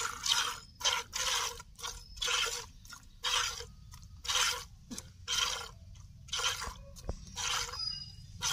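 Milk squirting from a cow's teats into a plastic bucket during hand milking: a steady rhythm of hissing squirts, a little more than one a second.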